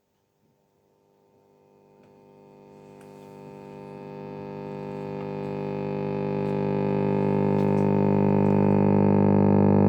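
Philips B3X80U/05 valve radio giving a steady, deep buzzing hum from its speaker instead of any station, faint at first and swelling slowly louder over several seconds as the set warms up after switch-on.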